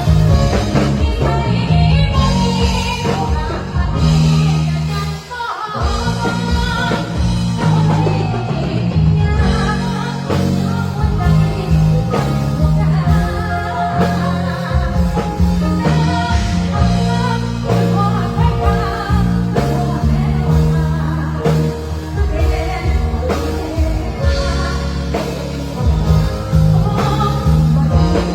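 A female singer performing a Thai luk thung song with a live band: heavy bass, drum kit and guitar. The band drops out briefly about five seconds in, then comes back.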